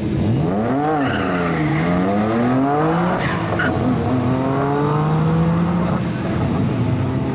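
A BMW 335i coupe and a Nissan Skyline GT-R launching hard from a standing start, with a brief tyre squeal at the launch. Their engines rev up and drop back several times as they shift up through the gears.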